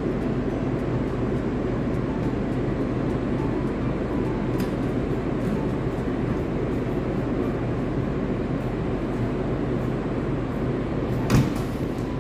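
JR Kyushu 885 series electric train standing at the platform, its onboard equipment giving a steady hum, with one sharp knock near the end.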